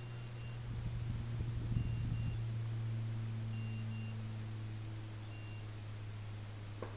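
A hunting dog's beeper collar sounds faintly, with a short high double beep about every two seconds. A steady low hum runs underneath, and brush rustles briefly about a second in.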